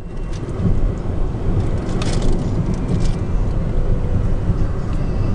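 Steady low rumble of road and wind noise from a car driving at speed, heard from inside the cabin.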